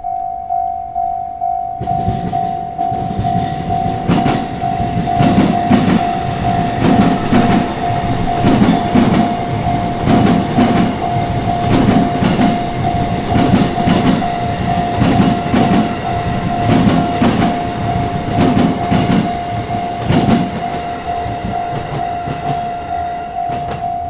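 Japanese level crossing's electronic warning bell ringing steadily while a green-striped JR commuter train (Saikyō Line E233 series) passes over the crossing. Its wheels clack over the rail joints in a regular rhythm from about two seconds in, fading near the end.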